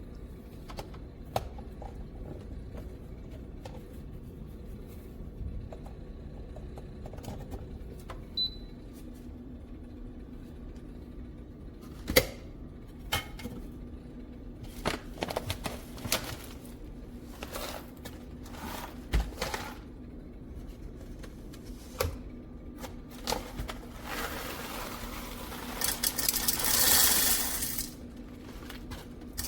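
Hard objects being handled: scattered clicks and knocks over a faint steady hum, then a louder stretch of rattling and hissing noise near the end.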